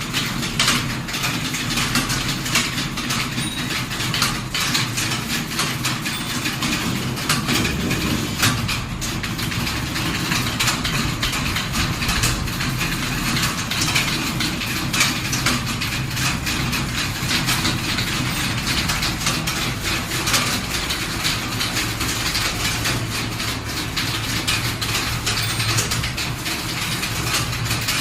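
Continuous fast clatter of keys being typed, many keystrokes a second without a break, over a steady low hum.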